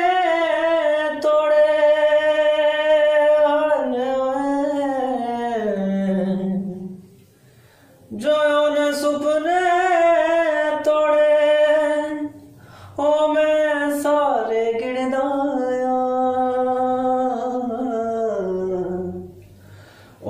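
A solo voice singing a Punjabi song in long, drawn-out notes without clear words, the pitch bending and sliding down at the ends of phrases. It breaks off about seven seconds in and again briefly near thirteen seconds, and the last phrase falls away near the end.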